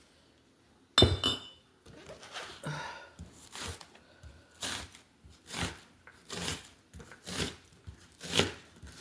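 A sharp glass clink about a second in, then a steady run of short knocks about once a second, from onions being handled with a knife and a glass mason jar.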